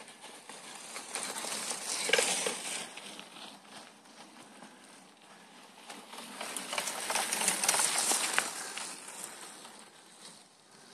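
Two mountain bikes riding past close one after the other, their tyres crunching and crackling over dry fallen leaves and dirt: the first passes about two seconds in, the second from about six to nine seconds.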